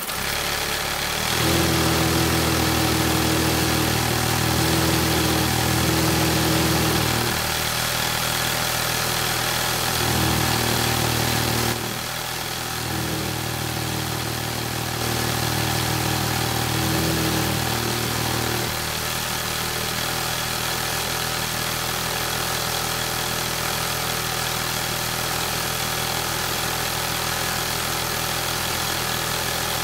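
Small DC motors of a miniature well-drilling rig running steadily, turning a spiral auger down into sand. A lower hum comes in about a second in, drops out for a few seconds twice, and stops near the two-thirds mark. A steadier higher whine continues throughout.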